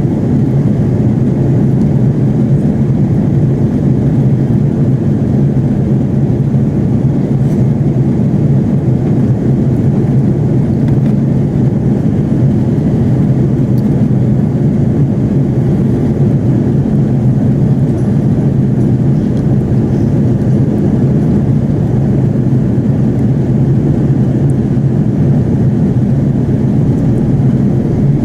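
Steady, deep cabin noise inside an Airbus A330-300 in flight: engine and airflow sound heard from a passenger seat, holding an even level throughout.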